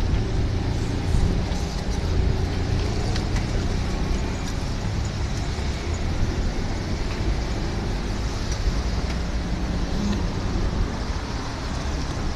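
Steady road traffic noise: motor vehicles running, with no train horn or crossing bell.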